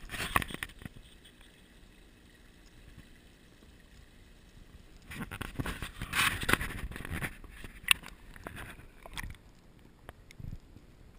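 Water splashing and sloshing, with rustles and knocks of the GoPro being handled, as the camera is pushed into a shallow garden pond; the run of splashes comes from about five to nine seconds in. After that the sound is muffled and low, with a few dull thumps, with the microphone underwater.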